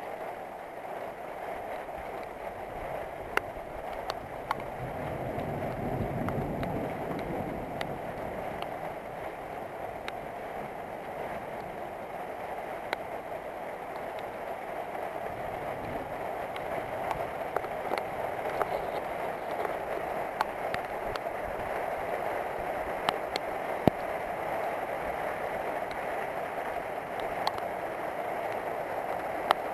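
Steady rain falling, with scattered sharp taps of drops landing close by. A low rumble of distant thunder swells and fades a few seconds in.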